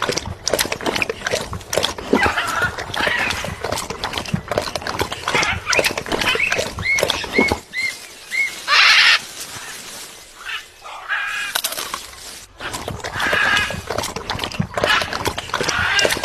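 Parrot at a coconut. Constant clicks and taps run through, with a row of about five short chirps about seven seconds in and a single harsh squawk just after.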